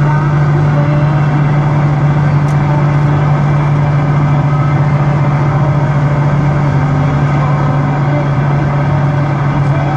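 Car AM radio playing static: a steady, loud hiss with a strong low hum under it and a faint click about two and a half seconds in. The static is the kind the title puts down to lightning interference.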